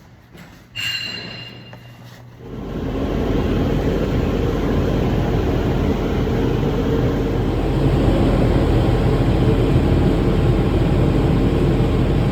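A short ringing clink about a second in, then a loud, steady, low rumbling noise that starts suddenly and holds.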